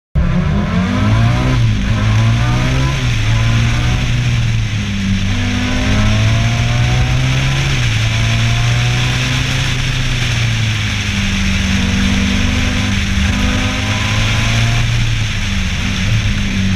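Race car engine heard from on board under load on a road, its note holding steady, then stepping up and down several times.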